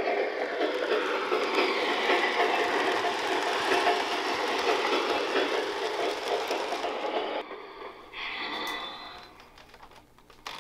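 Model train running on the layout, its sound-equipped boxcar playing rolling freight-car sounds with the sound switch on minimum. The sound cuts off about seven seconds in, comes back briefly about a second later, then fades, with a small click near the end.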